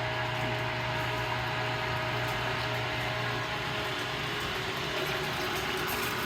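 Electric meat grinder running steadily, grinding raw gar meat; its low hum drops away a little over halfway through while the motor noise carries on.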